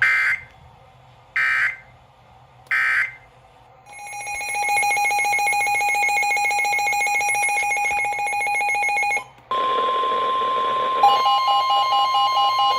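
Emergency Alert System tones: three short bursts of SAME digital data about a second apart, then a steady buzzy alert tone for about five seconds. About 9.5 s in, a NOAA Weather Radio style steady warning tone near 1050 Hz starts, and a second pulsing alert tone overlaps it a second and a half later.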